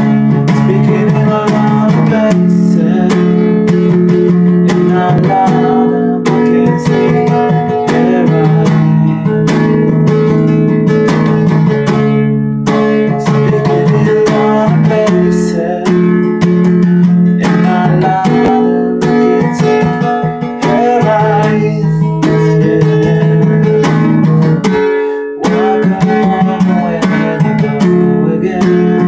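Acoustic guitar strummed in a steady rhythm of chords, with a short break about 25 seconds in.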